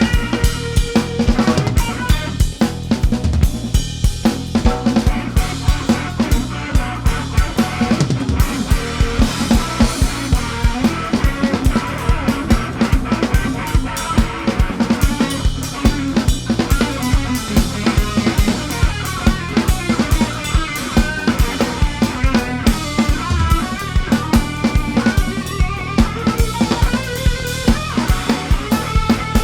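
Punk rock band playing an instrumental section: drum kit driving with fast, steady bass drum and snare hits under distorted electric guitar and bass.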